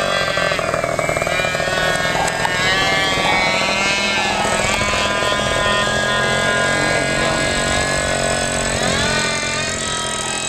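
Depron foam RC model MiG-29's motor and propeller whining in flight, the pitch sliding down and up several times as it flies past and the throttle changes.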